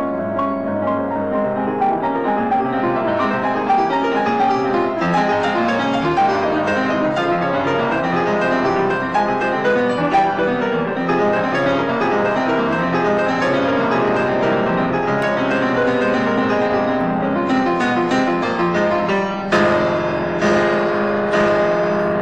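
Piano music playing over the soundtrack, a steady flow of notes, with loud chords struck twice near the end.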